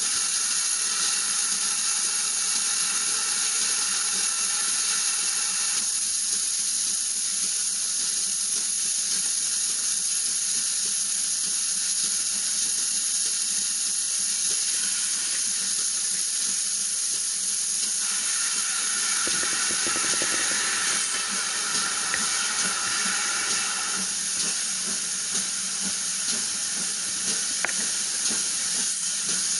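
Steady hiss of steam escaping from the GWR Manor-class 4-6-0 steam locomotive Foxcote Manor as it coasts slowly, with no exhaust beats. The tone of the hiss shifts a few times.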